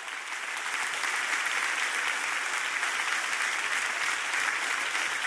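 Large audience applauding steadily, building over the first couple of seconds and then holding.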